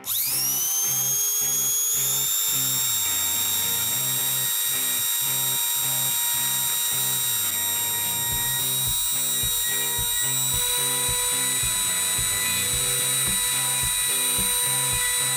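A 220-volt rotary engraver, used as the spindle of a homemade CNC machine, switches on and spins up in a rising whine, then runs at a steady high whine as its cone-shaped bit engraves plywood. Music with a steady beat plays underneath.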